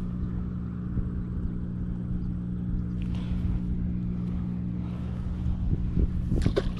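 A steady low mechanical drone at one fixed pitch, as from a large engine running, holding level throughout, with a few short handling clicks near the end.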